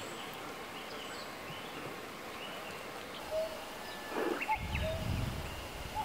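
Wild birds calling in the background: scattered short whistled notes at several pitches over a steady hiss. A low rumble joins about four and a half seconds in.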